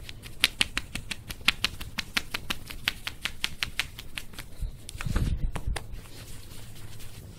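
A hand rubbing a cat's belly fur briskly: a quick run of short scratchy strokes, about six a second, with a heavier low rumbling bump about five seconds in.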